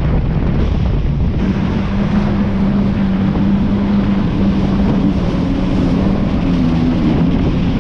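Jet ski engine running at speed, a steady drone that comes up about a second and a half in, under heavy wind buffeting on the microphone and the rush of water and spray.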